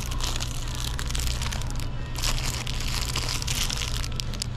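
Shiny plastic wrapper of a KitKat ten-pack crinkling irregularly as it is pulled off the shelf and handled, over a steady low hum.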